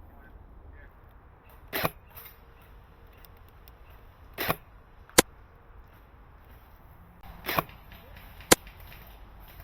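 Airsoft guns firing five single shots, spaced irregularly a second or more apart. Two of the shots are shorter, sharper cracks than the other three.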